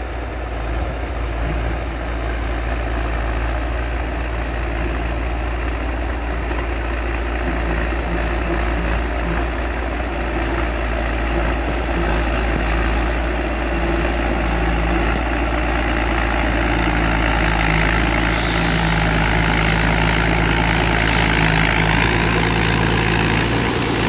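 TG 75 crawler bulldozer's diesel engine running steadily as the blade pushes a load of dirt, growing gradually louder as the machine comes closer.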